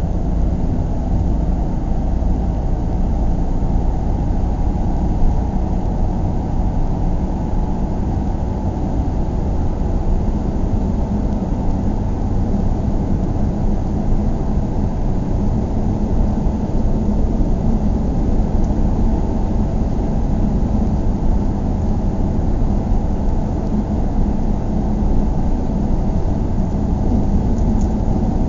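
Steady low road rumble of a car driving at a constant speed, heard from inside the cabin: tyre and engine noise with no changes in pace.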